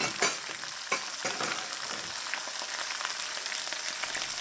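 Sliced onion, carrot and green bell pepper sizzling in hot peanut oil in a large pan, a steady hiss. A few sharp knocks come in the first second and a half.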